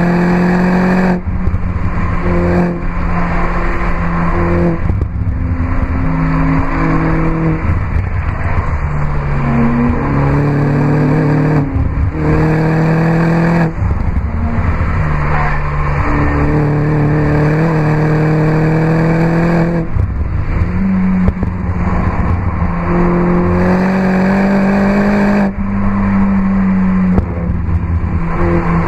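Mini John Cooper Works Roadster's 1.6-litre turbocharged four-cylinder, through an Akrapovic exhaust, pulling hard on track. The revs climb steeply again and again, each run broken by a quick gear change or a brief lift where the pitch drops.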